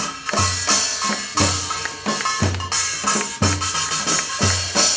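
Live Korean folk-style drumming on a drum kit and a buk barrel drum: a deep thump lands about once a second, with sharper lighter strokes between and a bright cymbal shimmer on top, keeping a steady beat with no singing.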